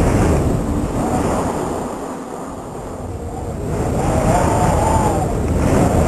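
Howling blizzard wind gusting, a rushing roar with whistling tones that rise and fall; it eases about two seconds in and builds again.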